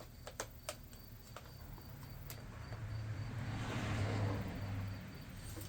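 A vehicle passing by, its noise swelling to a peak about four seconds in and fading again. A few faint clicks come in the first second and a half.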